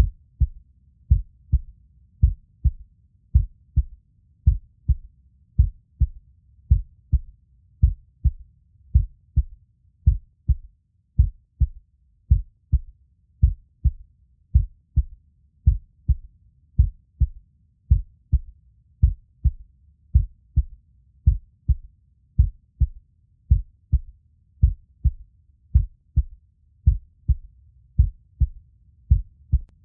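Heartbeat: a slow, steady lub-dub rhythm of paired low thumps, with a faint low rumble between beats.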